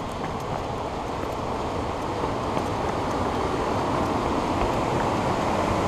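Whitewater of a mountain creek rushing over rocks: a steady rush of water that grows gradually louder.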